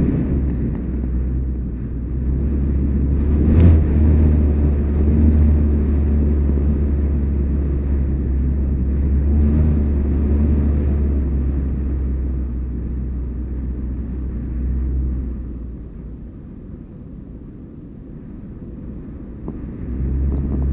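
Wind buffeting the microphone of a GoPro HD2 camera carried aloft, a steady low rumble that eases for a few seconds near the end. There is one brief knock about four seconds in.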